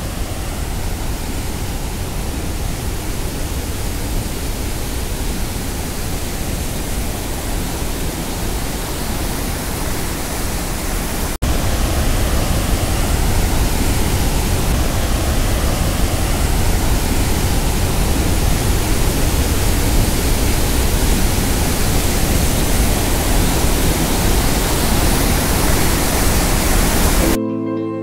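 Dhuandhar Falls on the Narmada River: a steady rush of churning whitewater. It gets louder after a cut about eleven seconds in. Soft background music comes in near the end.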